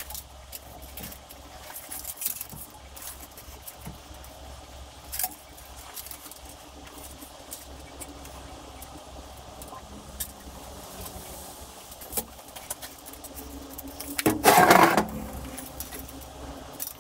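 Small metal clicks and rattles of hand clamps being tightened onto two steel plates on a steel workbench, over a low steady hum. About fourteen seconds in there is a louder metallic clatter lasting about a second.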